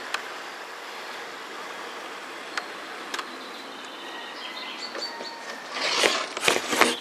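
Model Class 168 diesel multiple unit running along the track, with a few sharp clicks from the wheels, growing to a louder, uneven clatter near the end as it comes close.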